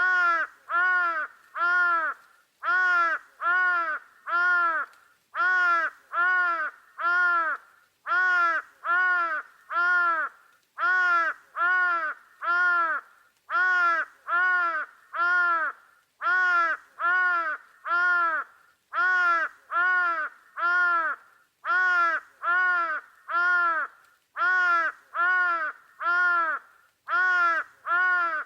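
A bird calling: harsh, pitched calls in evenly spaced groups of three, about one group every two and a half to three seconds, repeating with unchanging timing.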